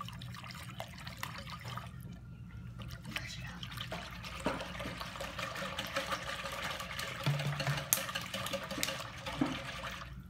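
A watery root beer mixture being stirred by hand in a mixing bowl: steady swishing and sloshing of liquid with small clinks, easing off briefly about two seconds in.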